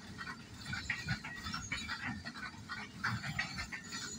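Wagons of a container freight train rolling past, their wheels and running gear clattering and grinding in quick, uneven bursts.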